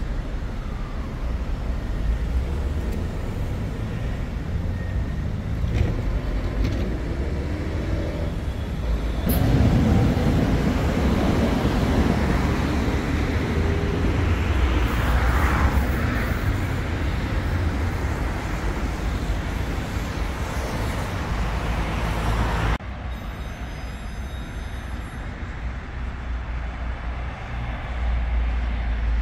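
City street traffic: a steady low rumble of passing cars and buses. It grows louder for a long stretch in the middle, then cuts abruptly to a quieter rumble about three quarters of the way through.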